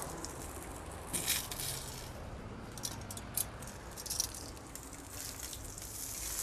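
Salt shaken from a glass jar over duck skewers in several short, rattling bursts.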